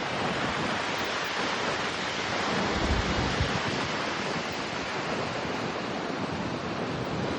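Ocean surf washing steadily onto the shore, with wind buffeting the microphone in a low rumble about three seconds in.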